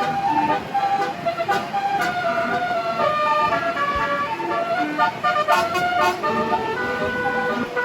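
Bus telolet horn, a 36-note basuri multi-tone air horn, playing a tune in quick stepped notes.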